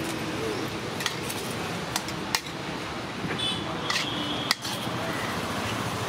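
Metal serving vessels and a scoop clinking and knocking about five times while rice is served from a large pot, one clink ringing briefly about three and a half seconds in, over a steady hum of roadside traffic.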